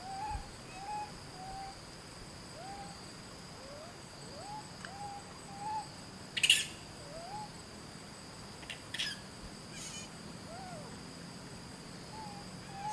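Infant macaque cooing: a string of short coos that rise and fall, about two a second, with a pause in the middle, as a baby does when it fears being left behind. A steady high insect drone runs underneath, and a brief crackle comes about six and a half seconds in.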